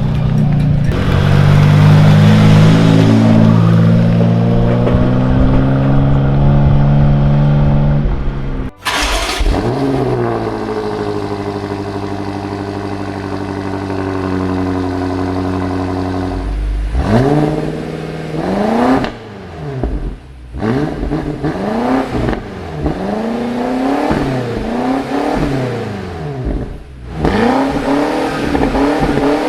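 A BMW M Competition car's twin-turbo engine holds a steady raised idle, with a sudden cut about nine seconds in, and the idle then eases slowly lower. From about halfway through it is revved again and again, a quick blip about once a second, each rising and falling back.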